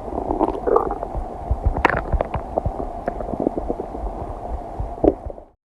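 A human stomach and intestines gurgling and rumbling while digesting a meal, with a run of small pops and bubbling gurgles over a low rumble and a louder gurgle about two seconds in. The sound cuts off suddenly into silence near the end.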